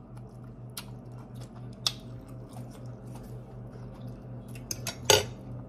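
Close-mic chewing of a mouthful of broccolini: sparse soft mouth clicks and squelches over a steady low hum, with one louder brief noisy burst about five seconds in.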